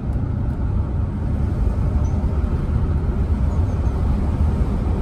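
Steady low road and engine rumble heard from inside a truck cabin while driving on a paved road.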